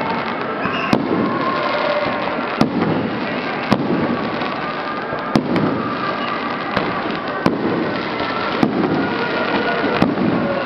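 Aerial fireworks shells bursting in the sky: sharp bangs at uneven intervals, about nine of them, one every second or so.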